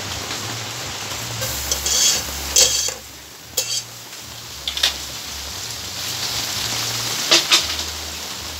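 Chopped chicken sizzling as it fries in a hot aluminium pot, with a few sharp clinks of a knife against the pot and board.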